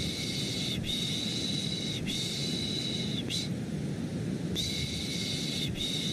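Baby-soothing shushing: repeated long 'shhh' sounds of about a second each, three in a row, a pause of about a second, then two more, over a steady low-pitched white-noise rumble.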